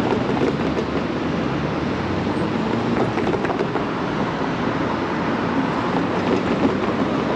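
Steady rushing street noise heard from a moving bicycle: traffic and road noise in a city street.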